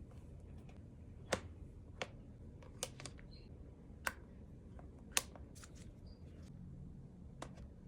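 Light handling sounds of an iPad keyboard case being unboxed: a string of sharp plastic clicks and taps at uneven intervals, about six louder ones among fainter ticks.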